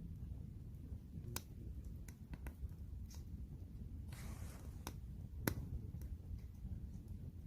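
Firewood burning in a campfire, crackling with sharp pops at irregular intervals, the loudest about five and a half seconds in, and a brief hiss around four seconds in, over a low rumble.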